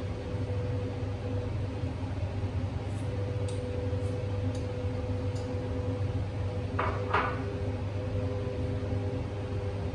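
A steady low appliance hum with a faint pitched tone, over which a spoon clinks lightly against a small ceramic bowl a few times from about three seconds in. About seven seconds in, a wooden spoon scrapes twice in a large steel pot.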